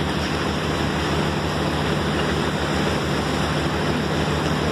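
Motorboat underway: a steady engine hum under the constant rush of water from its wake.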